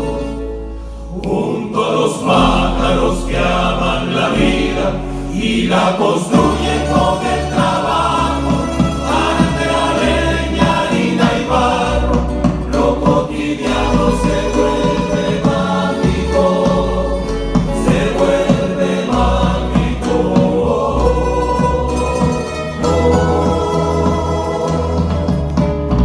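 Parranda folk music: a male choir singing over strummed and plucked guitars and lutes, with a deep bass line moving under it.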